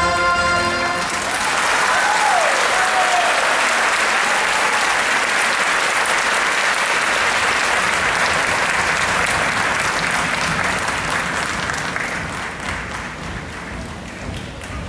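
A theatre audience applauding as the music ends on a held chord about a second in. The clapping goes on steadily, with a short call rising over it about two seconds in, and slowly dies down near the end.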